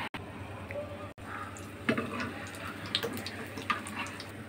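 Gram-flour phulki frying in hot oil in a karahi, a steady sizzle with scattered pops and crackles. A sharp click about two seconds in is the loudest sound.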